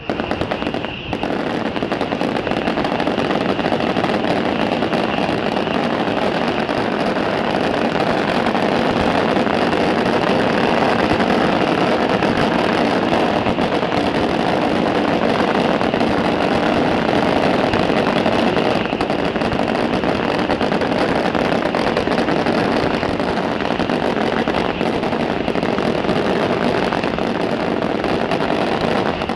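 A long, unbroken barrage of firecrackers crackling densely, the shots so close together that they merge into one continuous rattle.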